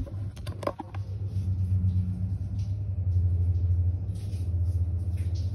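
A steady low rumble, with a short cluster of clicks about half a second in.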